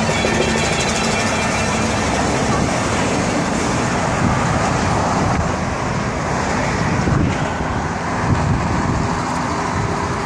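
Steady noise of highway traffic, cars and trucks passing.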